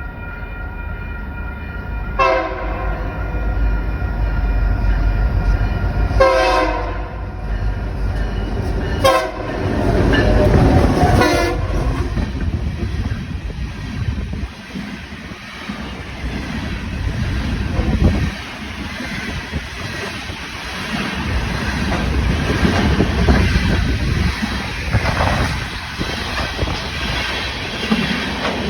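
A locomotive sounds its horn four times in the first dozen seconds as the train approaches. The train then rolls past close by, its wheels rumbling and clacking on the rails.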